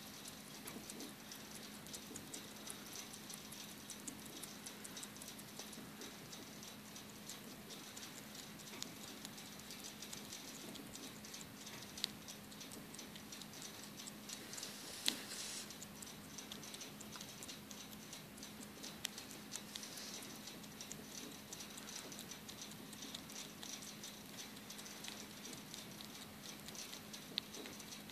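Hoary bat chewing a mealworm: a dense run of fine, rapid crunching clicks, with a few sharper clicks partway through. A steady low hum lies underneath.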